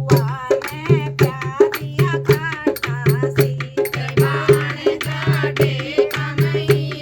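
Haryanvi folk song: voices singing over a fast, steady hand-drum beat with a deep repeating bass stroke.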